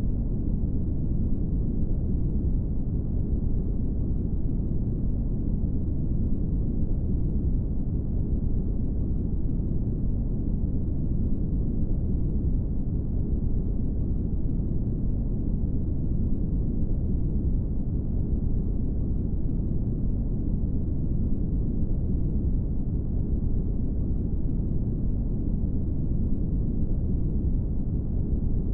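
Brown noise: a steady, deep rushing hiss with no changes.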